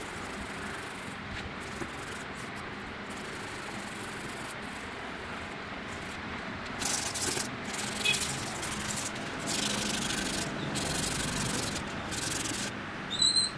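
Hand sanding of hardened filler on a broken racket frame being repaired: an even rubbing rasp at first, then from about halfway a run of louder back-and-forth strokes, each about a second long.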